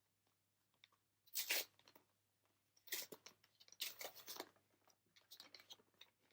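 A foil trading-card booster pack being torn open and crinkled, with handling of the cards inside: a burst of tearing about a second and a half in, a cluster of crinkling and tearing between about three and four and a half seconds, and lighter card ticks near the end.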